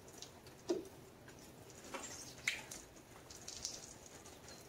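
Faint wet rubbing and squishing of a soapy microfiber wash mitt on a pole scrubbing a truck's painted panels, with scattered small clicks and a couple of light knocks.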